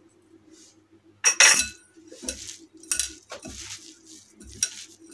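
Irregular clinks and knocks against a glass mixing bowl, the loudest about a second in, as sugar is scraped off a spatula and a crumbly filling is mixed by hand. A faint low hum runs underneath.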